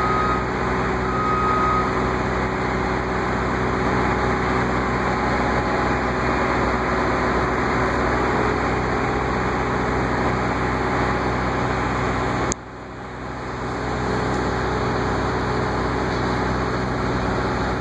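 Heavy construction machinery's diesel engine running steadily, with two reversing-alarm beeps in the first two seconds. The engine sound drops away suddenly about twelve seconds in and builds back up over a second or two.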